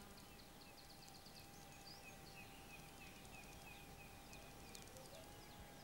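Near silence: a faint outdoor ambience with a quiet run of short chirps, about four a second, over a low steady hum and hiss.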